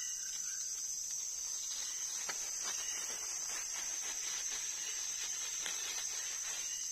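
Steady high-pitched drone of insects, crickets or cicadas, holding one pitch throughout. A few faint light clicks sound over it from about two seconds in.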